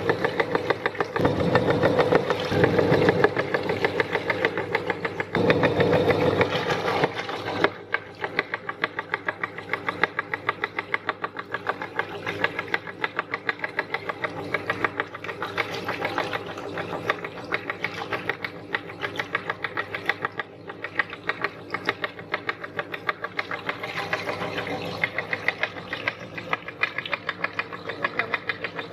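Meat grinder running with a fast, even clicking, heavier and louder for the first seven seconds or so, then lighter and quieter for the rest.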